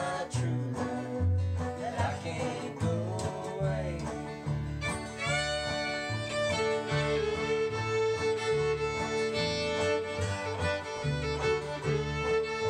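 Old-time string band playing an instrumental break: banjo, acoustic guitar and upright bass keep a steady rhythm, and a fiddle comes in with the melody about five seconds in.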